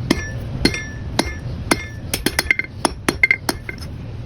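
Blacksmith's hammer striking hot steel flat stock over the edge of an anvil to forge grooves. The blows come about twice a second, then turn into quicker, lighter strikes, and many are followed by a metallic ring.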